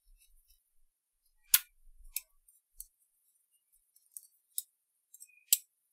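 A string of about seven sharp, light clicks and taps from small parts of a cassette deck's transport mechanism being handled, the loudest about a second and a half in and just before the end.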